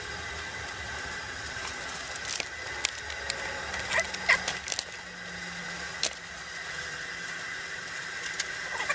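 Anycubic Photon resin 3D printer being stepped down in 0.1 mm increments to level the build plate. A steady high whine runs throughout, with light clicks about three a second and a low hum in the middle as the Z-axis moves.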